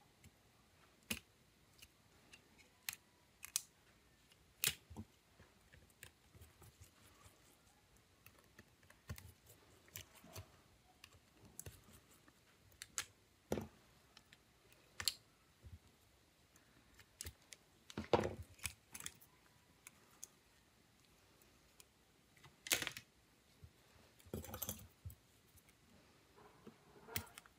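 Small hand tools and tablet parts clicking and tapping at irregular intervals, with a few louder knocks and short rattles in the second half.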